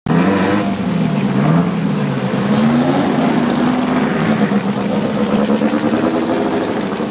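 Drag-race car's engine being blipped, its pitch rising and falling a few times over the first three seconds, then running at a steady idle.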